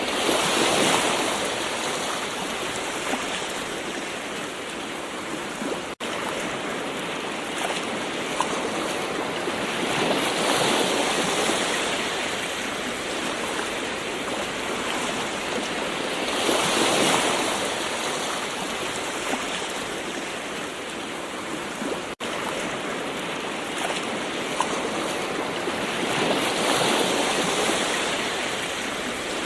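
Gentle ocean waves washing in and drawing back, each wave swelling and easing every six to ten seconds over a steady hiss of surf. There are two very brief dropouts in the sound.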